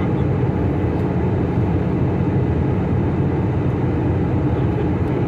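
Steady cabin noise of an airliner in cruise, heard from inside the cabin: the low, even rumble of engines and airflow.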